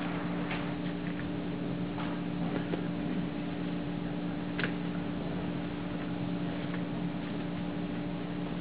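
Light scattered taps and clicks of a watercolor brush working against the palette and paper, with one sharper click a little past halfway, over a steady low electrical hum.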